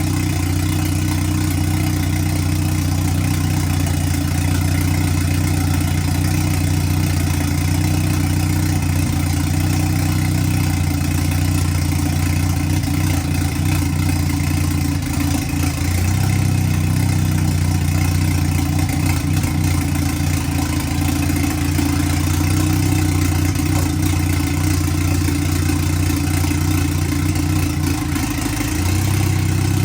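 Rebuilt Chevrolet Cobalt SS engine idling steadily, its pitch dipping briefly about halfway and again near the end. The engine is running well after the rebuild.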